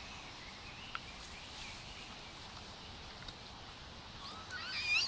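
Quiet outdoor ambience with a faint high, wavering animal call about a second and a half in and a louder, warbling high call near the end, plus a single light click about a second in.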